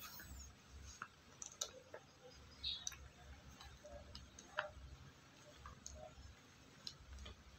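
A handful of faint, scattered clicks and crinkles from the woven plastic sack under a kitten and a cat as they shift on it and a hand pets the kitten.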